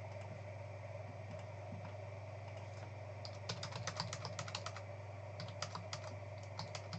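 Typing on a computer keyboard: two quick runs of key clicks, starting about three seconds in, over a steady low electrical hum.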